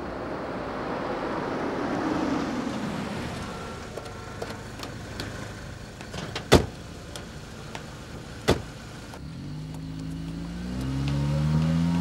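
A taxi car drives up with tyre and engine noise, then two car doors shut about two seconds apart, and near the end its engine rises in pitch as it pulls away.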